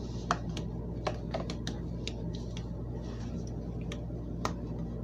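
Light, scattered clicks and crinkles of a paper cover being pressed down over a small glass jar and a rubber band being stretched and wound around the jar's neck, over a steady low hum.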